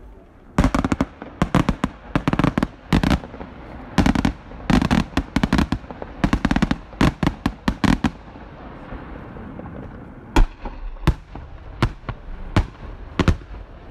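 Fireworks display going off: a rapid barrage of loud bangs for about seven seconds, then single sharp bangs coming less than a second apart.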